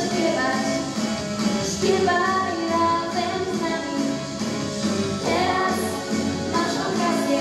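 A young girl singing a pop song through a handheld microphone over an instrumental accompaniment.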